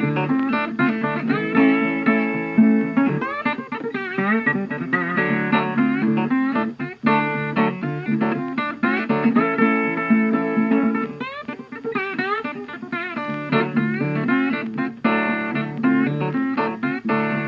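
Background music led by guitar, with plucked notes and sliding, bending pitches in a bluesy style.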